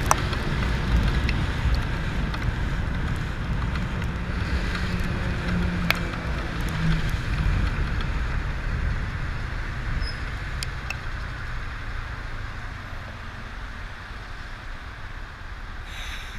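Riding a motorbike along a wet road: wind rushing over the handlebar-mounted camera's microphone, with the bike's engine running and tyres on wet tarmac underneath. A brief burst of spray hisses just before the end.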